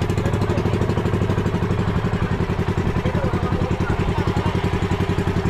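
Engine of a fishing bangka running steadily under way, with an even, rapid putter of about eight to nine beats a second.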